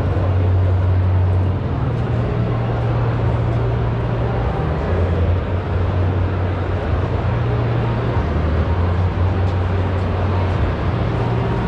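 Crowded exhibition-hall ambience: a steady haze of indistinct crowd noise over a strong low hum that steps between two pitches every second or two.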